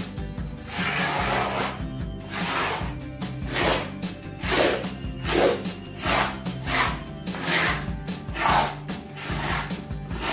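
Repeated rasping scrapes, a little more than one a second, over background music.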